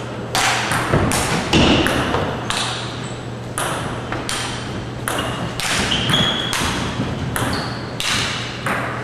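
Table tennis balls being hit back and forth by paddles and bouncing on tables, about two sharp clicks a second in an uneven pattern, with rallies on several tables overlapping.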